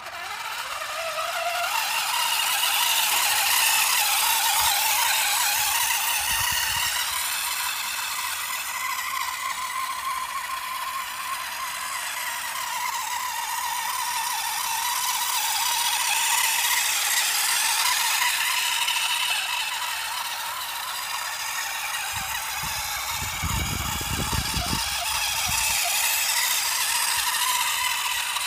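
3D-printed RC half-track driving over gravelly ground: its small electric drive motor and plastic gearing whine, the pitch wavering up and down as it speeds up and slows, over the steady clatter of the plastic tracks. A low rumble comes in briefly about three-quarters of the way through.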